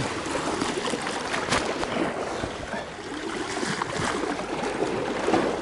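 Sea waves washing and splashing over the rocks of a seawall at the waterline, a steady churning of water. It opens with a short, sharp falling squeak.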